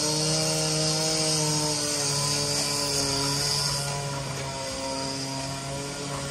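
Diesel engine of a JCB 3CX backhoe loader running steadily as the machine drives across the site, with a high hiss over it. The engine gets quieter about two-thirds of the way through as the machine moves away.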